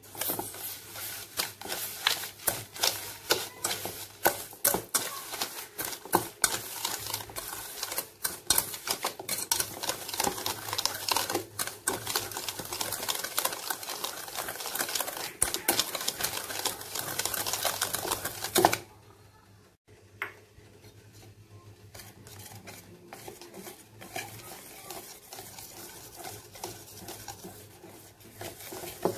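Wire whisk beating granulated sugar into mashed banana in a stainless steel bowl: a fast, busy rattle and scrape of the wires against the metal. About two-thirds of the way through it stops abruptly and a softer, quieter whisking of the smoother, wetter batter follows.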